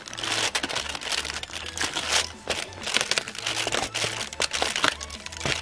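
Cardboard door and foil of a chocolate advent calendar being torn open and crinkled by fingers, a run of irregular crackles and rustles.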